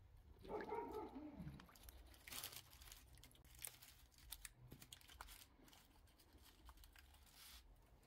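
Faint crinkling and rustling of butcher paper and foil with scattered light clicks as a smoked beef short rib is handled on it. About half a second in, a brief pitched sound slides down in pitch over about a second.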